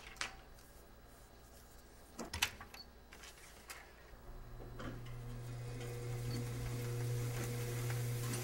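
A few sharp snips of scissors cutting a strip of film, the loudest about two and a half seconds in. From about halfway, a steady low hum with a few higher steady tones fades in and holds.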